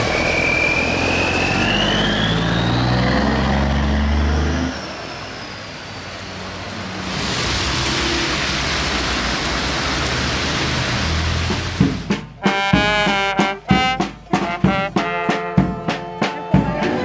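A heavy truck's engine running as it passes on a wet road, with a thin whine rising in pitch over the first few seconds, followed by car traffic hissing on the wet pavement. About twelve seconds in, music with strong beats begins.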